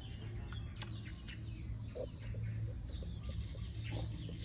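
Outdoor rural ambience: scattered short bird chirps over a steady low hum.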